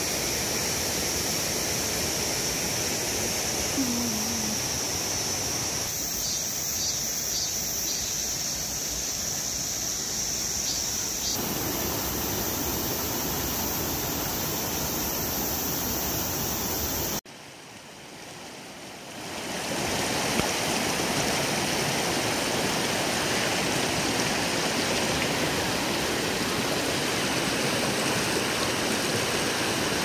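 Mountain stream rushing steadily over boulders and bedrock. Over the water, cicadas give a steady high drone for roughly the first half. A little past halfway the sound drops away suddenly for a couple of seconds, then the water fades back in.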